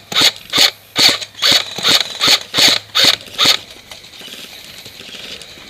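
Echo 1 M14 SOCOM airsoft electric rifle firing a rapid string of semi-automatic shots, each a sharp mechanical snap of the gearbox cycling. There are about ten shots, a little over two a second, and they stop about three and a half seconds in.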